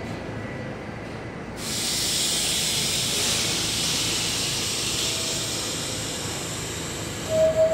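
Sudden hiss of compressed air from a stopped R68A subway car with its doors open, starting about one and a half seconds in and fading slowly over several seconds, over the steady low rumble of the train and station. Near the end the first note of the door chime sounds.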